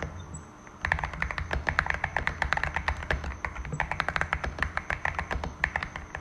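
Fast typing on a Cidoo V65 mechanical keyboard with Glorious Panda 67g tactile switches, foam- and tape-modded: a dense run of keystrokes that follows a short pause at the start.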